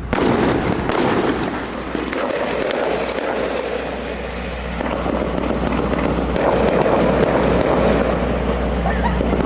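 Fireworks display: a run of bangs and crackles, several every couple of seconds, over a steady din.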